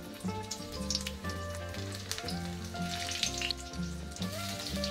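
Sliced garlic, bird's eye chilli and onion sizzling in a little hot oil in an aluminium wok as they are dropped in, with a light crackle. Background music with a steady bass line runs underneath.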